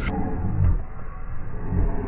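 Low, uneven rumble of a vehicle running.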